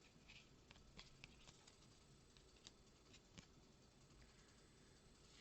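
Near silence with faint, scattered light ticks of trading cards being handled and shuffled.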